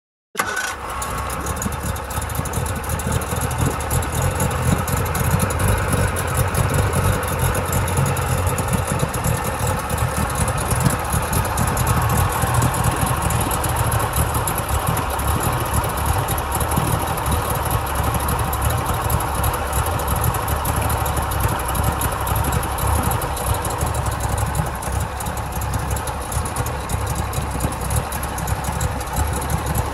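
40 hp three-cylinder Mercury two-stroke outboard idling steadily with its cover off, running on a newly installed fuel pump while it is checked for leaks. The engine sound cuts in abruptly just after the start.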